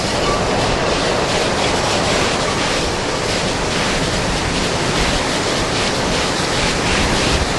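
Category Two hurricane wind, heard as a steady, loud rush of noise.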